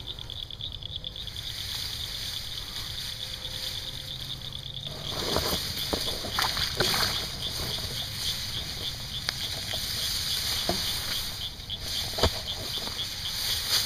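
Rustling and handling noises in tall grass as a hooked channel catfish is worked free, loudest a few seconds in, with a sharp click near the end. Behind it, insects chirp in a fast, even pulse.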